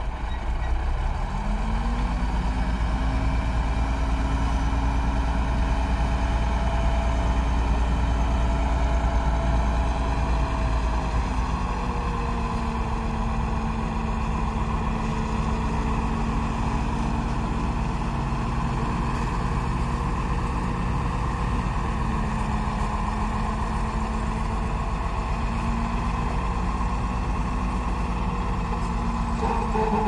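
Heavy dump truck's diesel engine running steadily while its hydraulic hoist lifts the tipper body to dump sand. A steady pitched drone comes in about a second in and holds over the low engine rumble.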